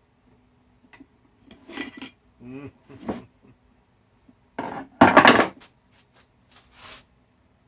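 A wheelbarrow tire and its wheel rim being handled and wrestled as the tire is worked onto the rim by hand: several separate bursts of clattering and scraping, the loudest a little after five seconds in.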